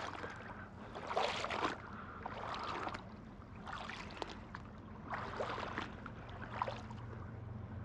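Legs wading through stream water: five sloshing splashes at an even pace of about one every second and a half, over the steady rush of the current.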